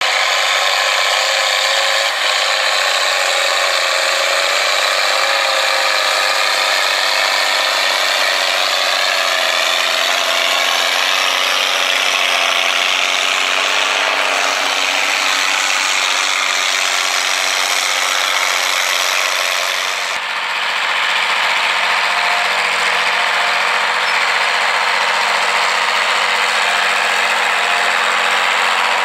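Farm tractor diesel engines running steadily under load while ploughing and cultivating. The sound changes abruptly about twenty seconds in, at a change of shot.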